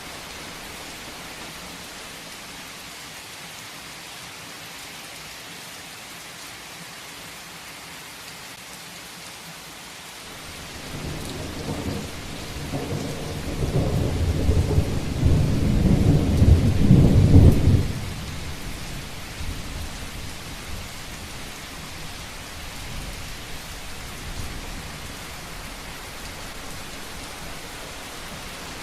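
Heavy rain falling steadily, with a long rolling rumble of thunder that builds about a third of the way in, grows loudest over several seconds, and cuts off fairly suddenly after about seven seconds.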